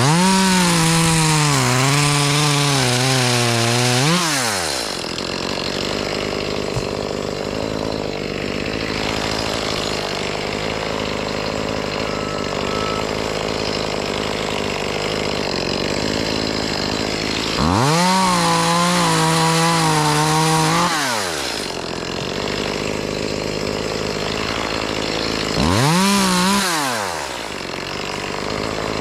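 Two-stroke chainsaw idling, revved up to full throttle three times: a long rev at the start, another about two thirds of the way in and a short one near the end. The pitch wavers during each rev.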